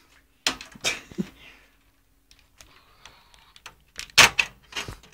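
Screwdriver clicking and scraping against the screws and sheet metal of a desktop PC case: a few sharp clicks, a faint scrape near the middle, and a louder knock about four seconds in.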